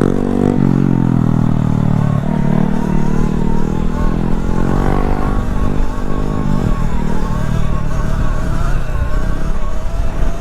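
Motorcycles riding along with wind rumbling on the rider's microphone. A petrol engine's pitch drops off over the first two seconds, then a steady, wavering whine carries on.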